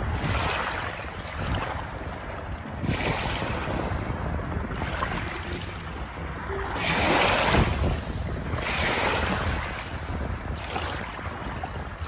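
Small waves washing in over a shallow bed of pebbles and shell fragments, coming in repeated surges, the biggest about seven seconds in. Wind rumbles on the microphone underneath.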